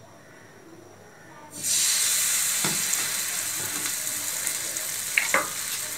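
A ladleful of patishapta batter hits hot ghee in a kadai about one and a half seconds in and starts sizzling at once, a steady frying hiss that eases only a little, with a couple of faint clicks.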